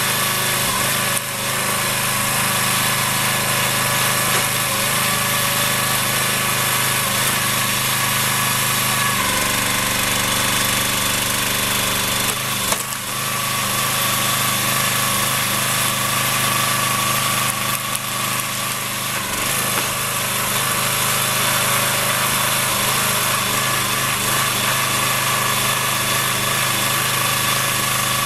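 Engine powering a hydraulic log splitter, running steadily; its low note shifts about nine seconds in, and there is a short sharp knock around twelve seconds in.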